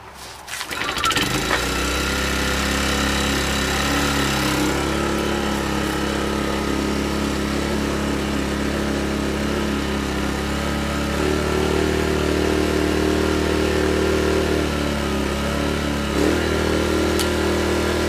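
Small Sportsman 1000-watt inverter generator started up: it catches within about a second and then runs steadily. Its engine note shifts a little partway through and again near the end.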